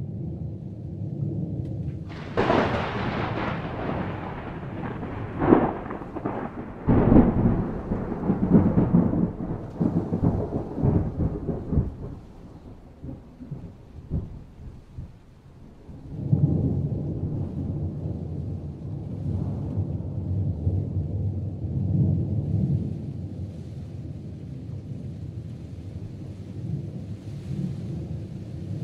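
Thunderstorm: a thunderclap breaks about two seconds in, with sharp cracks and a rolling rumble that dies away by about twelve seconds. A second long, low rumble of thunder rises from about sixteen seconds, over a steady hiss of rain.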